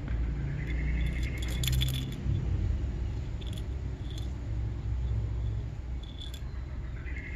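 Crosman Nitro Piston gas-ram air rifle making a strange high whine that slides up in pitch and then holds for about a second, once at the start and again near the end, with several sharp metallic clicks between, over a low rumble of handling noise.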